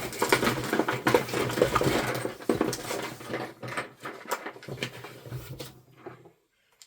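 Crinkling and rustling of toy packaging being torn open by hand, with small light clatters of the pieces inside. It stops about six seconds in.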